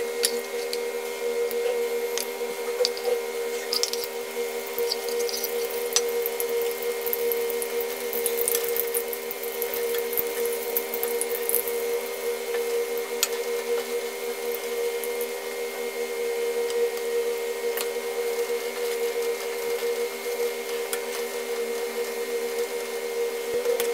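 Besan pakoras deep-frying in hot oil in a steel kadhai. The oil sizzles and crackles, and a metal spoon clinks and scrapes against the pan, all over a steady machine hum.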